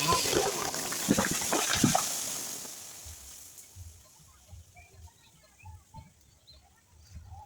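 A big rain tree crashing down: sharp cracks and snaps of breaking wood over a loud rush of branches and leaves, which dies away over the next two seconds or so.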